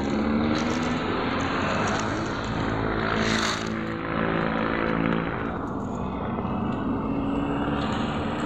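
A motor vehicle engine running steadily, with a steady low hum over a wide rushing noise. A brief hiss comes about three seconds in.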